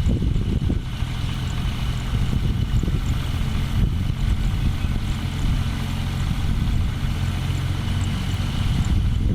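Kubota DC-35 combine harvester's diesel engine running steadily, with a constant high whine above the low drone.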